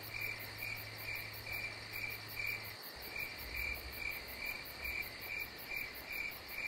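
Crickets chirping in an even rhythm, about two or three chirps a second, over a steady higher insect trill.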